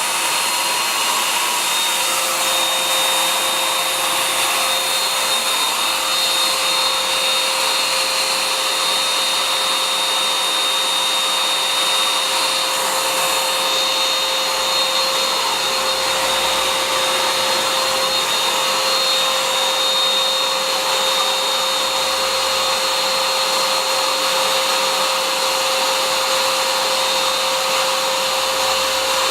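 Able OV6 600 W electric air pump running continuously, a steady rushing blow of air with a constant motor whine.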